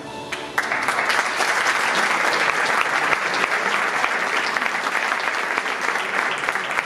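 Audience applauding, breaking out about half a second in as the last notes of music fade, then holding steady.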